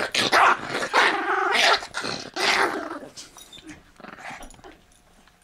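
Toy fox terrier growling over its bone while being petted: a run of snarling growls that are loud for the first two and a half seconds, then fade into weaker grumbles.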